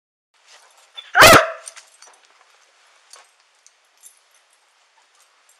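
A search dog barks once, loud and close, about a second in. Faint rustling and light clicks follow.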